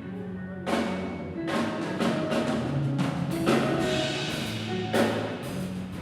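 Drum kit played hard, with struck hits and ringing cymbal crashes coming irregularly about every half second, over held low bass notes.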